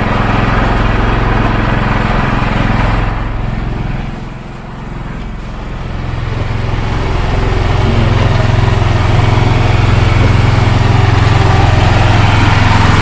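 Engine aboard a wooden outrigger fishing boat running steadily with a low drone. It dips briefly about four seconds in and is louder again from about eight seconds on.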